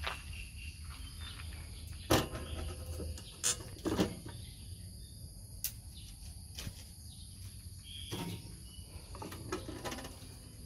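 Steady high-pitched insect drone, with a few sharp knocks as durians are handled on a wooden table and a spring scale's metal pan; the loudest knock comes about two seconds in.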